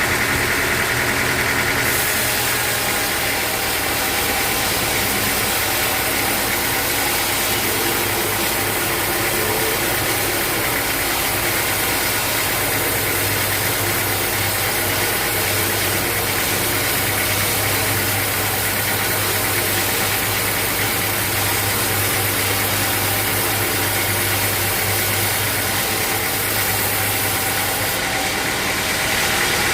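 Sawmill machinery running steadily: a motor's hum under a strong hiss. The sound shifts to a brighter hiss about two seconds in and back again near the end.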